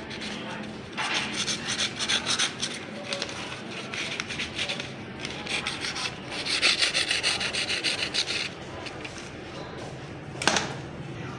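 Sharp kitchen knife slicing through a sheet of paper in several strokes, each a papery rasping hiss, a paper test of the edge's sharpness. One sharp tap comes near the end.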